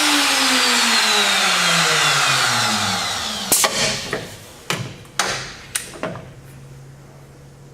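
Butt router of a Norfield 350H hinge routing station winding down after being switched off, its pitch falling steadily over about three seconds. It is followed by about five sharp clacks from the machine as the router and clamps are worked, and then a faint steady hum.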